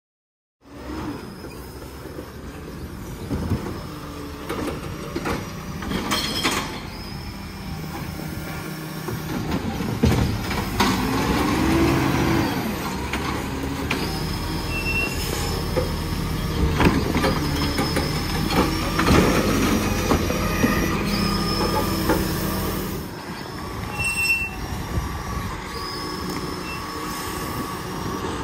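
A Hino side-loading recycling truck's diesel engine running while its hydraulic grab arm works, with metal squealing and several sharp clanks as the arm handles the bins.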